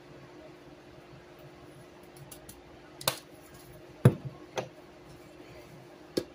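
Spice shakers knocking and clicking as they are set down on a wooden countertop and handled: four short sharp knocks in the second half, the loudest about four seconds in. A faint steady hum lies underneath.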